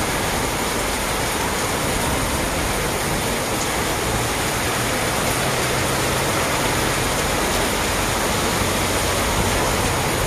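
Heavy rain pouring steadily onto a flooded street, with cars driving through the standing water; a vehicle engine hums through the middle, and an SUV pushes through the water near the end.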